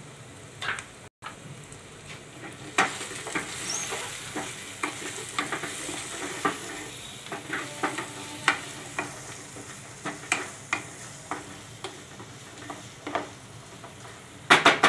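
A spatula stirring and scraping an onion masala in a non-stick kadai over a steady sizzle of frying, with irregular clicks and scrapes of the spatula against the pan and a quick cluster of louder knocks near the end.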